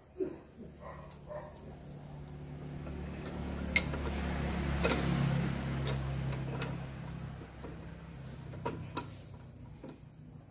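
A few sharp metal clinks and knocks from a cast-iron cylinder head being handled in a lathe chuck. Under them a low hum swells over a few seconds and fades away.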